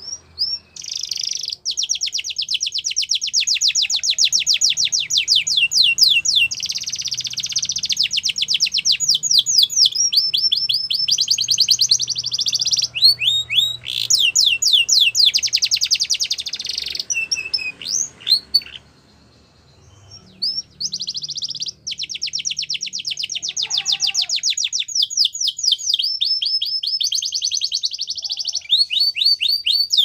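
Yellow canary singing: long runs of rapid trills, one roll after another at changing speeds, with a pause of about two seconds past the middle.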